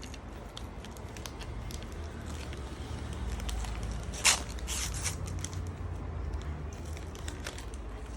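Foil trading-card booster pack crinkling and tearing as it is opened by hand, with scattered crackles and a louder sharp crackle about four seconds in.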